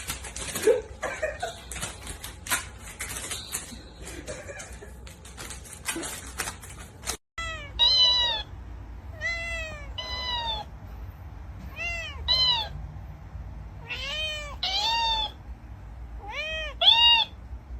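A rapid clatter of clicks and taps for about seven seconds, then a cat meowing again and again in short, arched meows, often two at a time.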